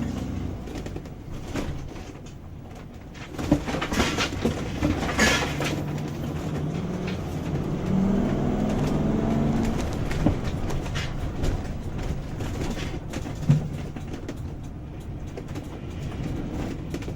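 RV engine and road noise heard from inside the cab while driving, with scattered rattles and knocks from the coach. The engine note strengthens and climbs about eight seconds in.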